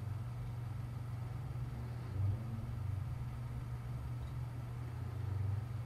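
A steady low hum with faint background hiss.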